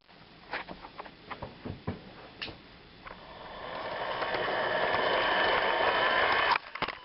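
Toy electric train's small motor and gears whirring with a faint whine, growing louder over about three seconds and then cutting off abruptly, after a few scattered clicks and knocks.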